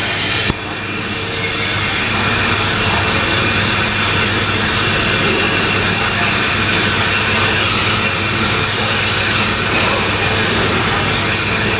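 Thaco EZ50S wire-cutting machine running with a steady mechanical noise over a constant low hum. A high hiss cuts off sharply about half a second in.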